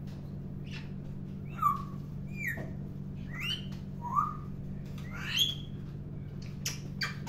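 African grey parrot giving a string of short whistles and squeaky calls, several sliding up or down in pitch, turning into a quick run of sharp calls near the end. A steady low hum runs underneath.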